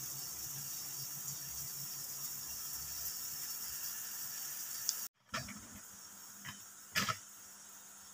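Lala clams cooking in a wok over a gas flame, a steady sizzling hiss. About five seconds in it cuts off abruptly, and a quieter hiss follows with a few short knocks, the loudest about seven seconds in.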